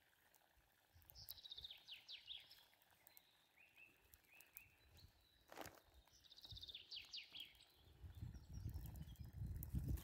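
A small songbird sings two short phrases of rapid trilled notes, each note sliding downward, about a second in and again after about six and a half seconds. A single sharp click comes between them, and a low rumble builds near the end.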